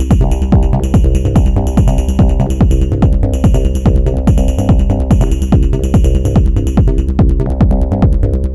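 Hypnotic techno/psytrance pattern played on an Elektron Model:Cycles groovebox. A kick with a falling pitch lands about twice a second under sustained bass and synth tones. The hi-hat and percussion pattern on top changes about seven seconds in.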